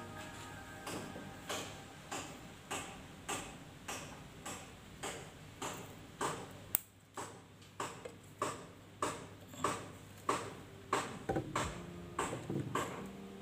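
Background music: a soft, steady ticking beat, about three beats every two seconds, with one sharper click about halfway through.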